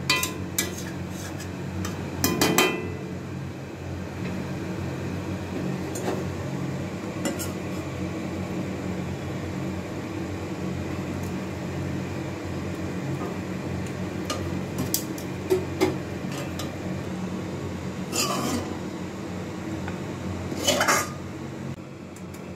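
Metal spoon scraping and clinking against a metal kadai while cooked food is lifted out onto a plate, with a handful of sharper clinks, the loudest about two seconds in and two more near the end. A steady low hum runs underneath.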